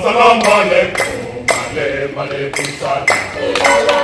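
Group of choir members singing a chant together, with hand claps keeping a steady beat about twice a second.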